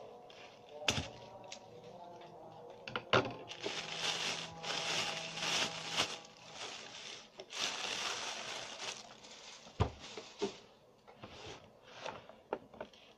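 Thin plastic bag crinkling and rustling as it is pulled off a cardboard box, loudest in the middle. There are a few sharp knocks of the box being handled on a desk near the start and near the end.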